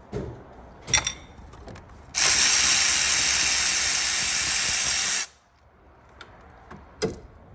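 A steady, loud spray hiss lasting about three seconds, starting and stopping abruptly. Short metallic tool clicks come just before and after it.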